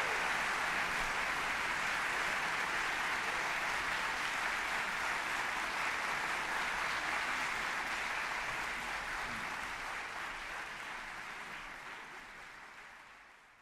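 Audience applauding steadily, fading away over the last few seconds.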